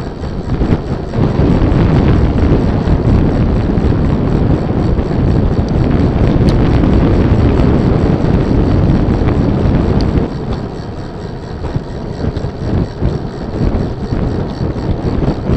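Loud wind buffeting the microphone of a camera mounted on a moving vehicle, a dense low rush with road noise beneath. It eases a little about ten seconds in.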